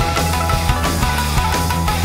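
Loud rock music with drums and electric guitar, playing steadily.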